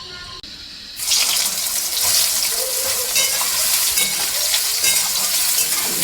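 Food frying in hot oil in a pan: a loud sizzle that starts suddenly about a second in and keeps on steadily.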